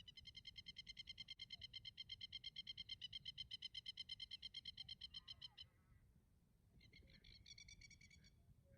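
An animal calling in a long, even trill of rapid pulses, about nine a second, that stops after five or six seconds. A second, shorter pulsed call follows about a second later.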